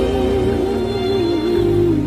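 Slow background music: a gently wavering melody over held low chords, which change about one and a half seconds in.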